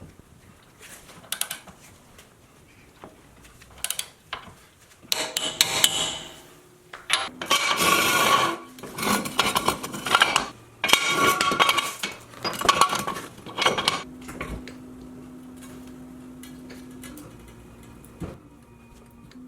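Metal tools clinking and knocking against metal suspension parts: scattered knocks, then several seconds of dense clattering, followed by a faint steady hum.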